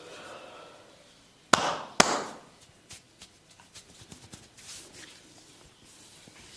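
Two loud, sharp smacks from a barber's head massage, about half a second apart, each with a short fading tail. Faint small clicks and rubbing follow.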